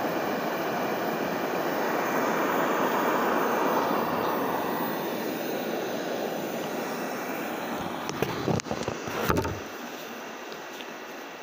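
eufy robot vacuum running close up, a steady whirring hiss from its suction fan and brushes. A short clatter of knocks comes about eight seconds in, after which the sound drops quieter.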